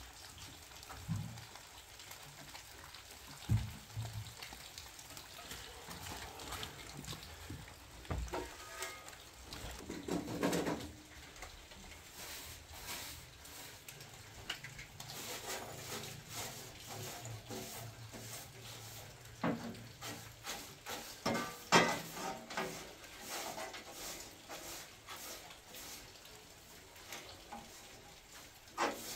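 A short straw hand broom brushing ash off the metal base of a sheet-metal wood stove into a metal dustpan: repeated light scraping strokes and clinks, with a few sharper knocks.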